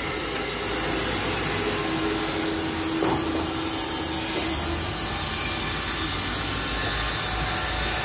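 Carpathian SMSA 110 semi-automatic horizontal band sawmill running with a steady mechanical whir. A steady hum sits on top of it for a couple of seconds mid-way.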